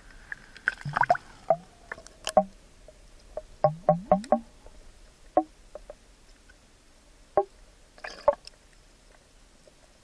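Water bubbling and knocking against a Sony HDR-AS15 action camera's waterproof housing as it is dipped underwater: irregular pops and knocks, some with a short ringing tone. They come thickest in the first half, with a few more about seven to eight seconds in.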